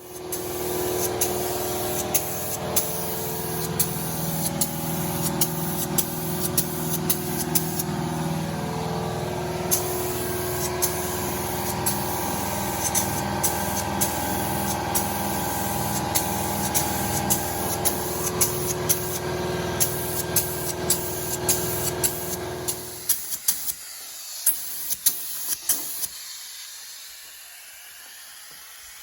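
Spray painting: a steady motor hum, typical of an air compressor, with the hiss of a paint spray gun and many sharp clicks, likely the clear coat going on over fresh paint. The hum stops abruptly near the end, leaving fainter clicks and hiss.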